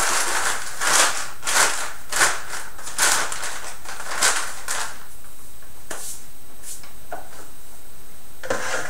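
A brown paper bag and a plastic bag inside it crinkling and rustling as they are handled: a quick run of irregular crackly rustles for about five seconds, then a few scattered crinkles.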